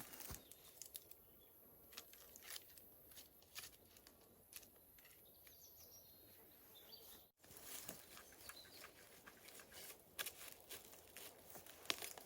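Near silence: faint scattered clicks and rustling, with a short total dropout about seven seconds in.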